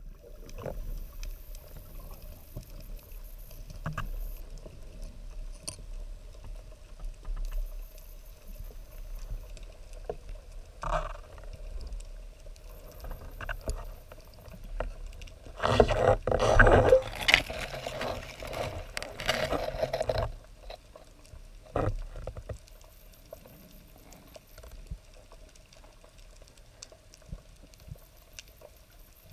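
Underwater sound picked up by a diving camera on a freedive: scattered crackles and clicks over a faint steady tone. A louder burst of rushing, bubbling water lasts about four seconds past the middle.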